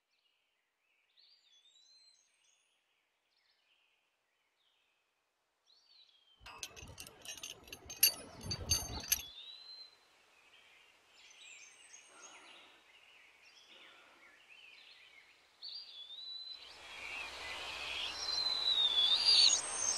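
Birds singing in short repeated whistled phrases, joined from about six to nine seconds by a burst of crackling clicks and knocks, the loudest near eight seconds. Toward the end a broad hiss comes in and grows louder under the birdsong.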